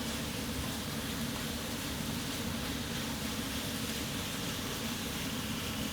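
Steady, even hiss with a low hum underneath from a stovetop: a sugar-and-honey sauce cooking in a pan under a running kitchen extractor hood.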